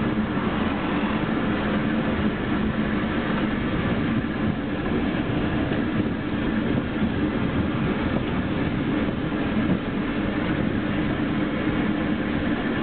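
Train in motion heard from aboard: a steady running noise of wheels on the rails and the moving cars.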